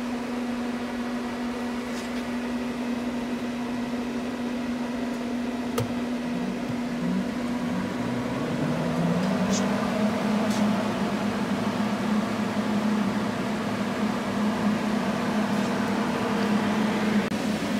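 Steady electrical machine hum, then a click about six seconds in and the plasma power supply's cooling fan spinning up as the unit is switched on. Its whine rises in pitch over about two seconds, then holds steady over the hum.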